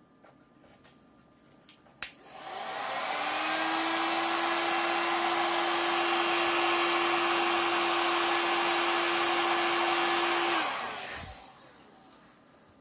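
A hot-air blower is switched on with a click about two seconds in. Its fan spins up to a steady blowing hiss with a humming tone, runs for about eight seconds, then is switched off and spins down.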